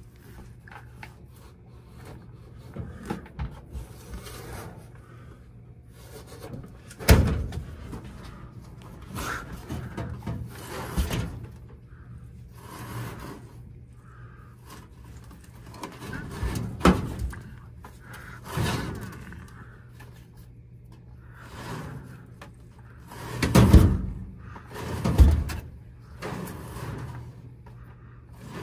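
Network cable and pull string being dragged by hand through a hole in wooden basement framing: irregular rustling and scraping, with a sharp knock about seven seconds in and two heavy knocks near the end. A steady low hum runs underneath.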